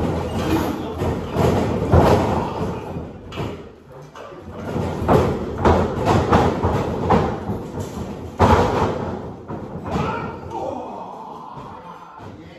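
Wrestlers' bodies and feet hitting a wrestling ring's canvas and ropes during a practice sequence: a run of heavy thuds and slams, the loudest about two seconds in and again past eight seconds, easing off near the end.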